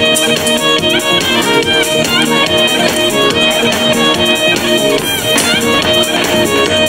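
Background music: the instrumental interlude of a Hindi patriotic film song, played between sung verses, with held string tones.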